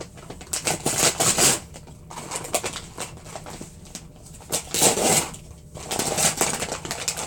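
Rustling and scraping of a handmade cardboard gift wrapping, cut from a box, as it is handled and picked at, in several short bursts.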